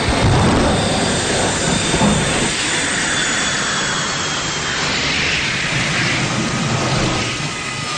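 Jet-powered ice dragster skimming across frozen ice and slowing to a stop behind a braking parachute: a steady, loud rushing engine noise with a thin high whine that falls slowly in pitch.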